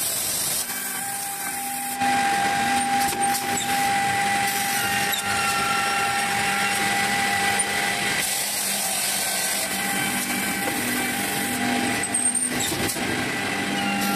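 Automatic edge banding machine running: a steady motor hum and whine with a high hiss that gets louder about two seconds in and again around eight seconds in.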